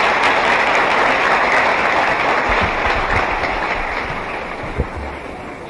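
A large audience applauding, a dense steady clatter of many hands that gradually dies away over the last couple of seconds, with one low knock near the end.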